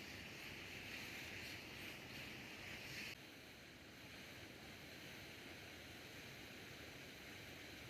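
Faint, steady rushing of running water. About three seconds in the sound changes abruptly and a higher hiss drops away.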